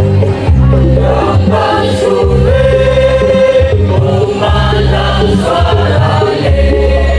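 Choir singing a Javanese song in held, chord-like phrases that shift every second or so, over a deep bass line.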